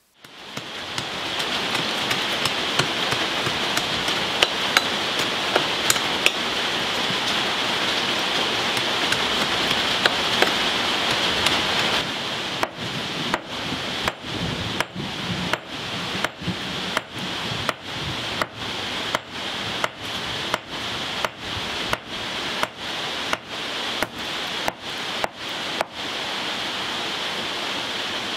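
A sledgehammer striking repeatedly, about twenty blows at roughly one and a half a second, starting about halfway through and stopping shortly before the end, over a steady loud noise that runs throughout.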